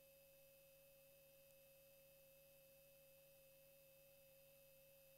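Near silence, with one faint, perfectly steady tone, typical of electrical hum from a sound system.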